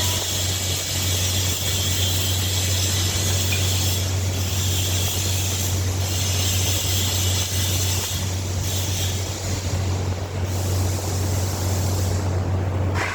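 Electric arc welding: a steady high hiss from the arc over a constant low hum from the welding machine. The hiss thins out briefly several times while the hum runs on.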